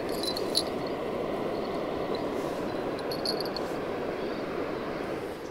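Light plastic clicks and small metallic tinkles as hands fit the fishing line into a swinger bite indicator on a rod, in two short spells about half a second and three seconds in, over a steady rushing background noise.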